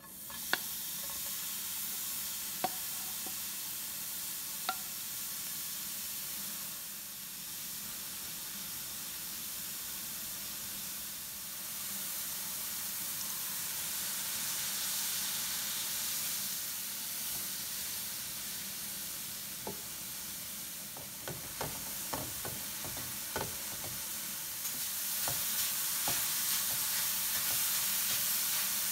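Grated beetroot sizzling in a hot nonstick frying pan, the sizzle starting sharply as the beetroot goes in, with a wooden spatula knocking against the pan as it stirs. Water added partway through keeps it sizzling, and the spatula knocks come thick in the second half.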